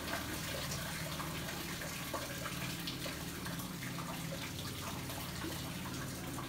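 Steady water splashing and trickling, with a low steady hum underneath.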